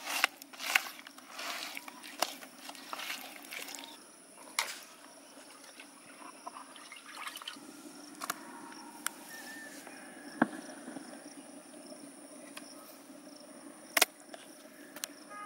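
A hand squelching and slapping through thick, wet masala paste in a plastic bucket: a quick run of wet smacks over the first few seconds, then only a few scattered pats and clicks as fish steaks are pressed into the paste.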